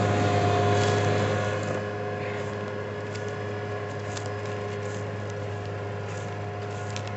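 Large farm tractor's diesel engine running steadily under load while it pulls a subsoiler through wet, stubble-covered soil. The drone eases a little over the first two seconds as the tractor moves away.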